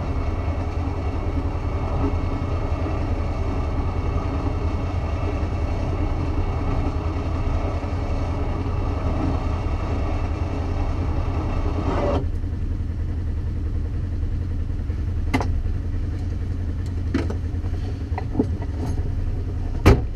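Off-road vehicle's engine idling steadily; a higher whirring layer over the idle stops abruptly about twelve seconds in, leaving the low idle, and a few sharp clicks follow near the end.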